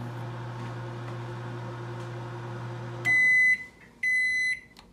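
Emerson countertop microwave oven running with a steady hum that stops about three seconds in as its timer reaches zero. Two short, high beeps follow, signalling the end of the cooking cycle.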